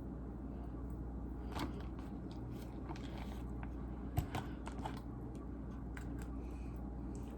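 Hands handling food at a kitchen counter: scattered faint clicks and rustles, with one sharper knock about four seconds in, over a steady low hum.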